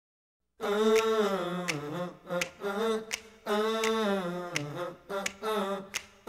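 A song starts about half a second in: a sung voice holding long notes, with sharp finger snaps.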